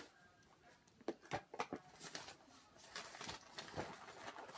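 Quiet handling noises: a scattering of small clicks and knocks with faint rustling as small kit items are picked up and moved about.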